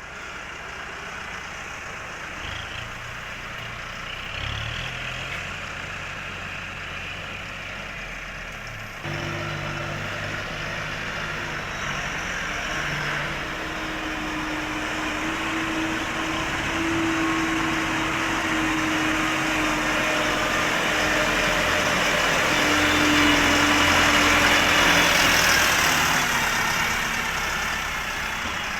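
Livestock feed mixer driven by an electric power unit, running steadily with a mechanical hum. It steps up in level about nine seconds in and grows gradually louder.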